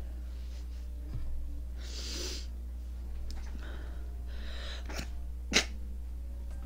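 A woman's tiny sneeze, one short sharp burst about five and a half seconds in, after two soft breathy intakes. A steady low hum runs under it.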